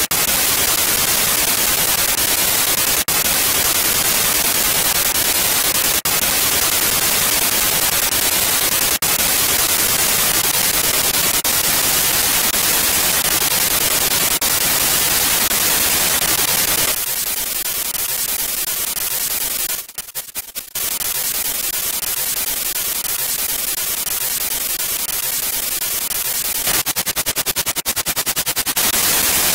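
Spirit-box radio-scanner app sweeping through FM frequencies, giving a steady hiss of radio static with faint clicks every few seconds. About two-thirds of the way in the hiss thins, stutters through a quick series of dropouts, and near the end it chops rapidly for a couple of seconds.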